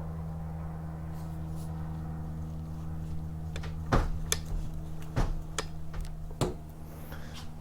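A steady low hum, and from about halfway in a handful of sharp knocks and clicks: parts of a Stihl FC91 edger being handled as its new drive shaft is worked into the other end by hand.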